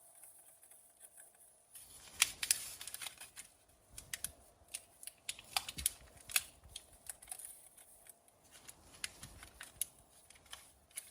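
Hands handling a new 7440 turn signal bulb and its packaging: irregular small plastic clicks, taps and crinkles, starting about two seconds in.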